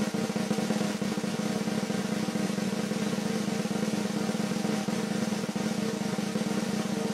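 Snare drum roll: a steady, very fast roll with a ringing drum tone under it, a suspense roll laid in ahead of a score being announced.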